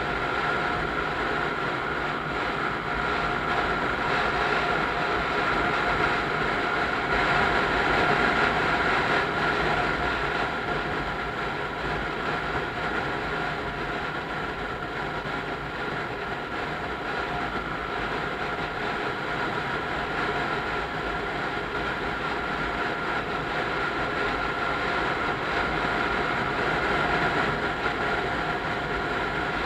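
Motorcycle riding at a steady cruising speed, its engine running with a steady whine over wind and road noise.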